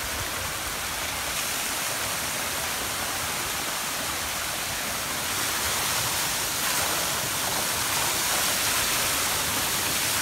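Spring water pouring over a stone ledge and splashing into a rocky pool: a steady rushing splash that grows a little louder about halfway through.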